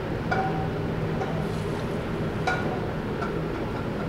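Steady background rush of a commercial kitchen with a low hum, as from the running gas range and ventilation, with three light clinks about a third of a second, two and a half and three seconds in.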